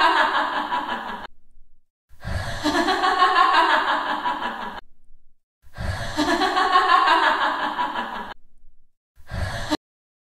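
A breathy human vocal sound, each about three seconds long, repeated three times in near-identical form with short gaps, then a brief fragment that cuts off suddenly near the end.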